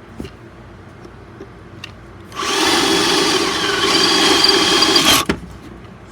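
Ryobi power drill running in a burst of about three seconds, drilling into wood: its motor whine dips in pitch briefly midway, recovers, then stops abruptly. A few light clicks come before it.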